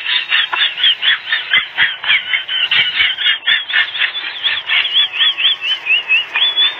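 Puppies squealing in a fast run of short high yips, about five a second, as they play-fight. Near the end the yips drop a little in pitch and end in one longer squeal.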